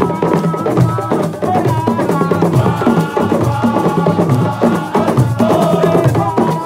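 Drum-led percussion music: many dense, fast drum strokes and sharp wooden-sounding knocks in a driving rhythm, with a high melodic line over them.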